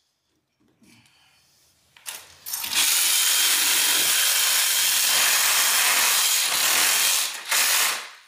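Cordless DeWalt oscillating multi-tool cutting through nails driven through a band board into concrete. It starts with a short burst about two seconds in, then runs steadily and loudly, dipping briefly once before stopping near the end.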